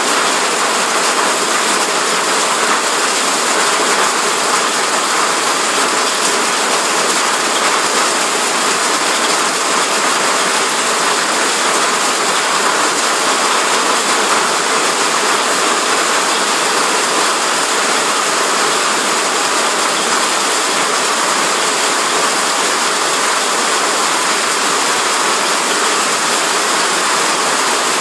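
Heavy rain mixed with small hail pelting wet asphalt: a loud, steady, dense hiss of countless impacts.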